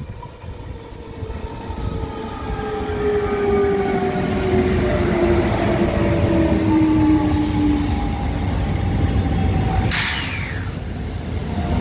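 A CP stainless-steel electric multiple unit passes close by, its wheels rumbling on the rails and its electric traction motors whining in tones that fall steadily in pitch. About ten seconds in there is a sudden sharp hiss that drops in pitch.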